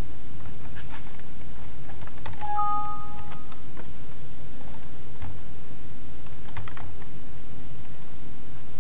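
Computer keyboard keystrokes and mouse clicks, scattered and irregular. About two and a half seconds in, a Windows warning-dialog chime sounds once: two steady tones held for about a second. A steady low hum lies under it all.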